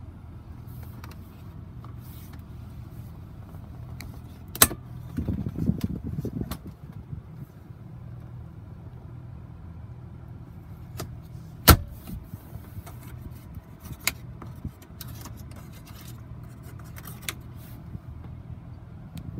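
Steady engine idle hum inside a Chevrolet truck's cabin, with sharp plastic clicks and a clunk of the center console lid, storage bin and outlet covers being opened and shut by hand. The two loudest clicks come about five seconds in and again about twelve seconds in.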